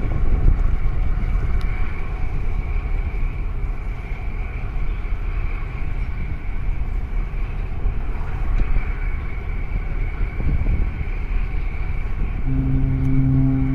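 Steady low rumble of a small boat under way, with wind and water noise. Near the end a deep ship's horn starts a long, steady blast.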